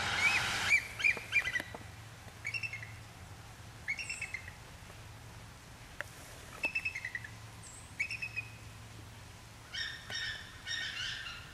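Bald eagles calling: about six short runs of quick, high chattering notes, the longest and fullest near the end. A steady rushing noise at the start cuts off less than a second in.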